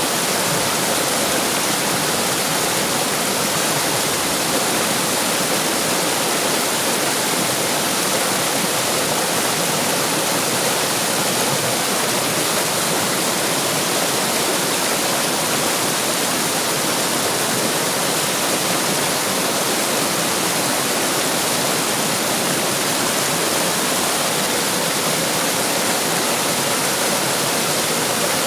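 Running water of a stream or small waterfall, splashing in a steady, unbroken rush.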